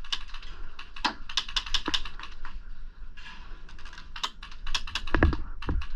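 Airsoft guns firing: irregular sharp clicks, several in quick runs, with two dull thumps near the end.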